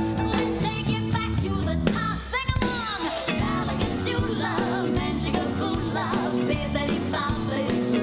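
Recorded song with sung vocals and a steady beat played as dance accompaniment; about two seconds in, the music switches abruptly to a different passage.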